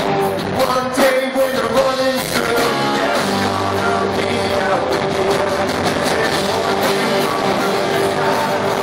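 A live rock band with keyboard, electric guitars, bass and drums playing loudly through the venue's sound system, heard from the crowd; a sung line in the first couple of seconds gives way to long held notes.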